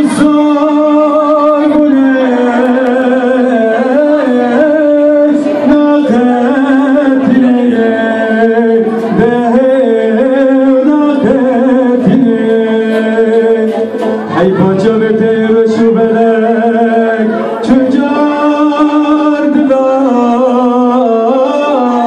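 A man singing a Kurdish folk song into a microphone, accompanied by a plucked bağlama (long-necked saz). The voice is held and ornamented with vibrato, in a continuous melodic line.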